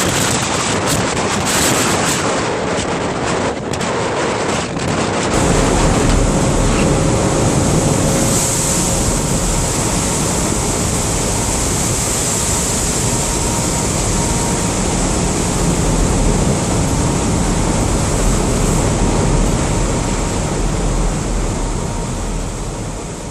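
Loud rushing wind and sea noise, with wind buffeting the microphone in gusts over the first few seconds. A deep, steady rumble sets in about five seconds in and holds.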